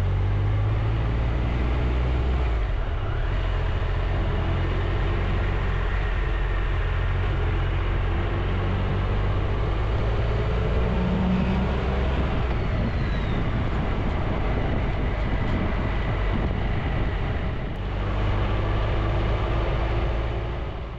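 Motorcycle engine and wind rush while riding along a road. The engine note changes in the first few seconds, then runs steadily.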